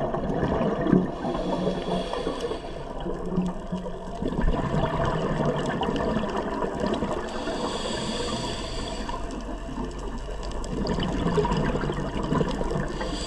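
Underwater scuba breathing through a regulator: bubbling rumbles of exhaled air alternate with spells of higher hiss, in slow cycles a few seconds apart, over steady underwater noise.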